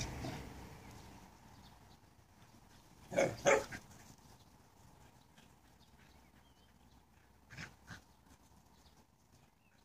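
A dog barking twice in quick succession about three seconds in, then two fainter barks near the end. A rushing noise fades away over the first couple of seconds.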